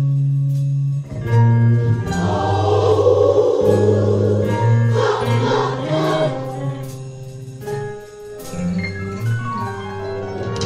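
Gospel music: a choir singing over held instrumental chords, fullest in the middle of the passage.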